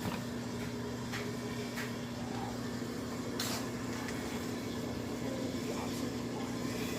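UTV engine idling steadily, a low even hum, with a few faint clicks.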